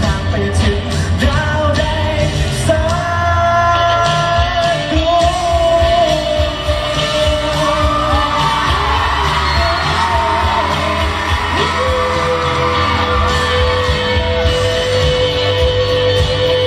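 Male pop singer singing live into a handheld microphone over amplified pop accompaniment, ending on a long held note.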